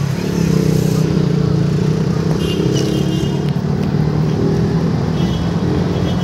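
Small engine of an open passenger tricycle running steadily as it moves through traffic, heard from the seat right behind the driver.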